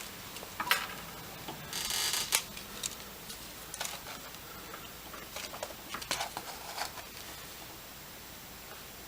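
Small clicks and taps from soldering work on a drone power distribution board, with a short hiss about two seconds in as solder is added to the pad. The clicks thin out after about seven seconds.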